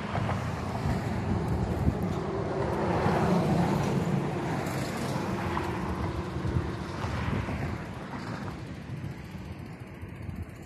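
A road vehicle passing on the bridge beside the path, growing to its loudest about three to four seconds in and then fading away, with wind buffeting the microphone.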